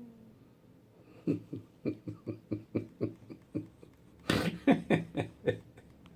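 A person laughing in quick repeated bursts, about four a second, with a louder breathy burst about four seconds in.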